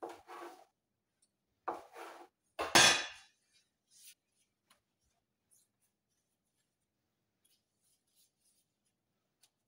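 Knife slicing through a rolled log of cinnamon-roll dough: three short cuts in the first three seconds, the third the loudest. After that only faint soft rustles as the cut roll is handled in plastic-gloved hands.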